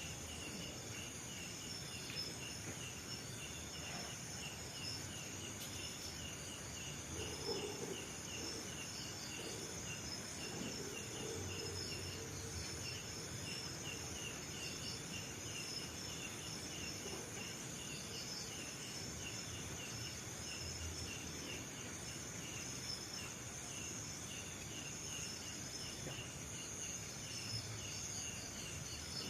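Insects outdoors: a cricket chirping in a steady rhythm of about three chirps a second over a continuous high-pitched insect drone.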